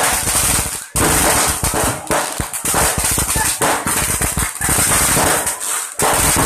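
Firecrackers and aerial fireworks going off in dense, rapid crackling volleys, many bangs a second, with a brief break about a second in and another near the end.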